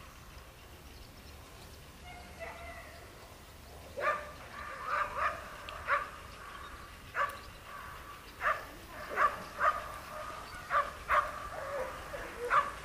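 A dog barking and yelping repeatedly in short, high calls at uneven spacing, with a thin whine held between them, starting about four seconds in.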